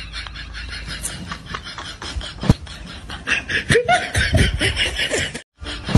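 Snickering laughter: a quick run of short laugh sounds that grows louder about halfway through and cuts out for a moment near the end.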